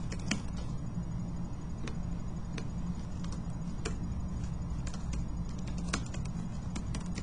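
Scattered single clicks of computer keys and a mouse, a few keystrokes spread over several seconds as a subject line is typed, over a steady low hum.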